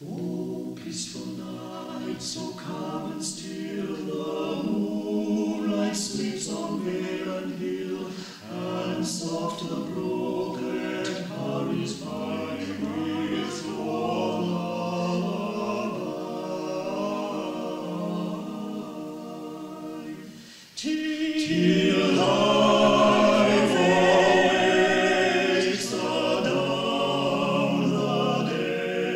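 Amateur choir singing, heard on an early-1960s reel-to-reel tape recording. About two-thirds of the way through, the singing jumps suddenly louder and fuller.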